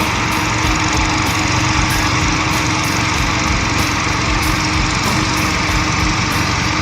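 An engine running steadily, with a constant hum over a wide mechanical noise.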